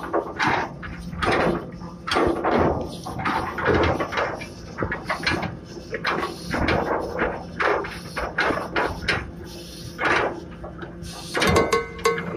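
Anchor chain clanking link by link as it is heaved in with the anchor, sharp metallic knocks about once a second over a steady low machinery hum. Music comes in near the end.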